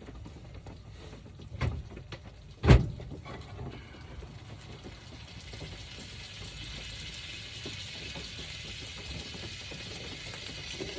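An egg tapped twice on the edge of a frying pan, then it sizzles steadily as it fries.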